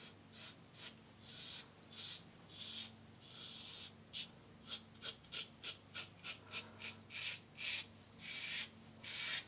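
Schick Type L injector razor with a third-use Ted Pella blade scraping through two days of stubble under lather. About twenty short, separate strokes, quicker in the middle.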